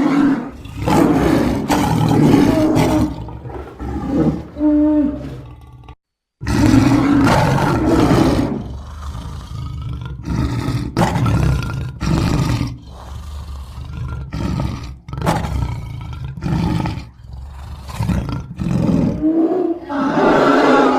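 Edited creature sound effect built from bear recordings, mainly polar bear and sloth bear: a string of loud bear roars, some long and some short and clipped, with a sudden half-second cut to silence about six seconds in.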